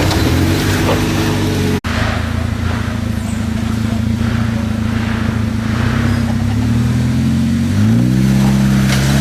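A 4x4's engine running at low revs while crawling over rough ground, dropping out for an instant about two seconds in. Near the end its pitch climbs as the driver gives it more throttle.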